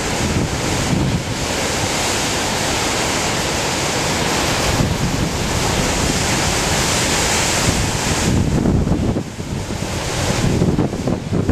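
Heavy typhoon swell breaking as surf: a long rush of whitewater that fades about eight seconds in, over wind buffeting the microphone.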